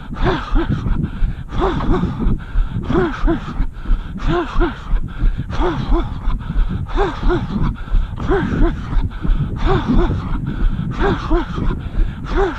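A runner breathing hard in a steady rhythm, each breath voiced with a short rise and fall in pitch, over the regular low thud of footfalls on the path.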